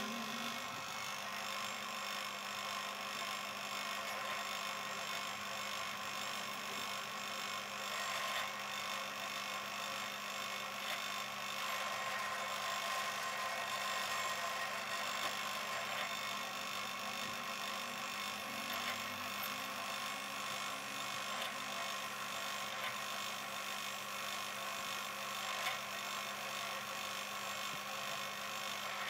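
Drill press motor running with a steady hum while a twist drill cuts into a metal block, with a few faint ticks from the cut.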